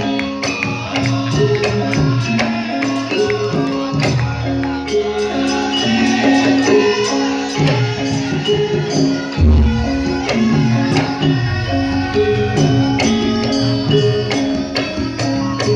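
Live traditional music played by an ensemble: a stepping melody over jingling, tambourine-like percussion with frequent sharp strikes.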